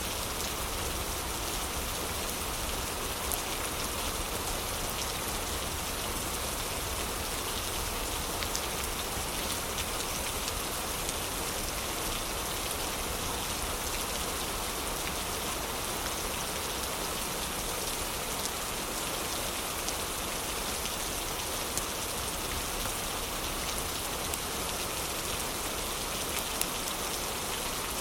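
Heavy rain falling in a steady, even hiss, with occasional sharp ticks scattered through it.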